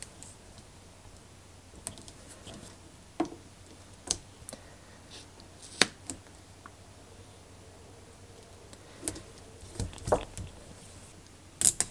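Double-sided mounting tape being pressed onto a plastic battery case and cut with scissors: a few scattered soft clicks and handling noises, with a sharper scissor snip about six seconds in.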